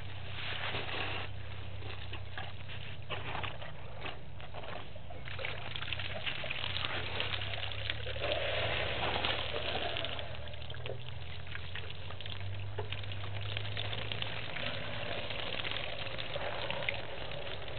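Water splashing and trickling as African elephants drink at a waterhole, drawing water up in their trunks and pouring it into their mouths. A steady low hum runs underneath.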